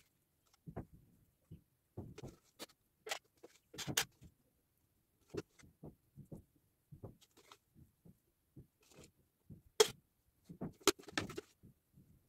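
Hands working material onto a cardboard stand: irregular soft taps and rustles of cardboard and plastic being handled, with a few sharp clicks, the loudest just before ten seconds in.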